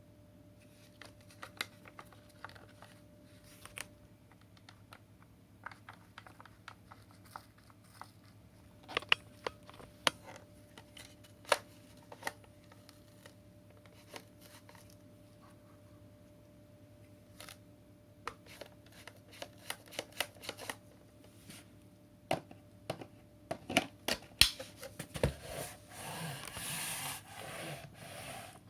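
Scattered clicks and light knocks of a cordless stick vacuum's hard plastic parts and accessories being handled, growing busier toward the end, then a few seconds of rustling near the end.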